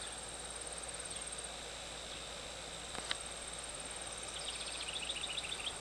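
Insects singing in the garden: a steady, very high-pitched drone, joined about four and a half seconds in by a rapid pulsed chirping. There is a single light click about three seconds in.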